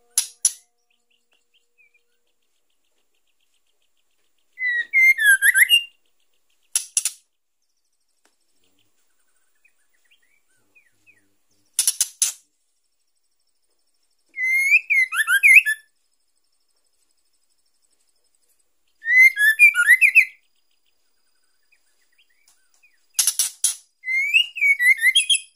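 Female white-rumped shama (murai batu) giving four short, chattering whistled phrases several seconds apart, with brief sharp fluttering bursts in between, one of them as she flaps her wings. These are the female's calls used to bring a male shama into breeding condition.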